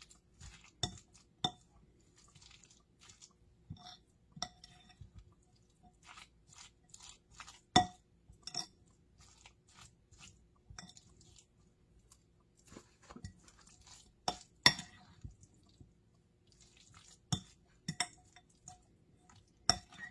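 A spoon clinking and scraping against a mixing bowl as mayonnaise-dressed chicken salad is stirred, in irregular taps with two sharper knocks about eight and fifteen seconds in.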